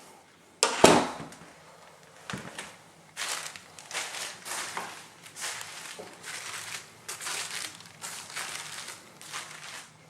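A sharp knock about half a second in, then a run of irregular scuffing and rustling noises.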